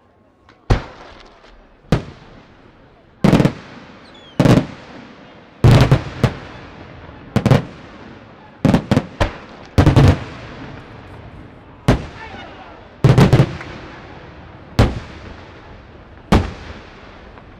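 Aerial fireworks shells going off in a series of loud, sharp bangs, roughly one every one to two seconds. Some come in quick pairs or clusters, and each bang trails off in a rolling echo.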